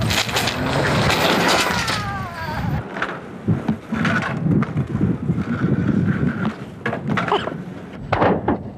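Skateboard scraping and grinding, loudest in the first two to three seconds, with a squeal falling in pitch; then lighter knocks and scuffs.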